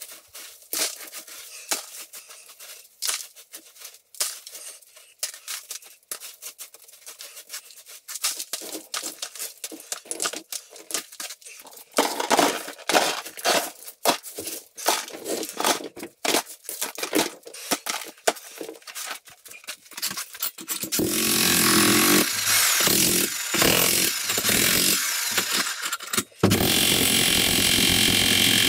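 Chunks of broken concrete clattering and scraping as they are picked up by hand and dropped into a plastic bucket, in irregular knocks. About 21 seconds in a jackhammer starts breaking the concrete slab, running steadily with a brief break near the end.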